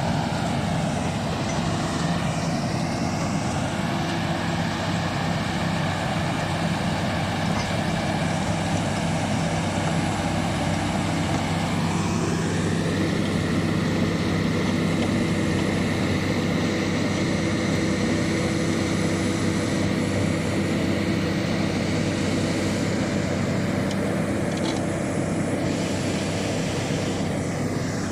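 Shantui DH17 bulldozer's diesel engine running steadily under work, with a higher whine that rises and settles at a new pitch about twelve seconds in.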